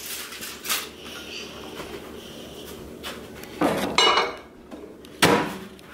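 A spatula clinking and scraping against a ceramic mixing bowl, then a few louder knocks and clatters, the loudest near the end, as the bowl is put into the microwave.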